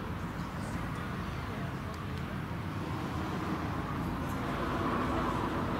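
Outdoor background noise: a steady low rumble with faint voices in the distance, growing a little louder near the end.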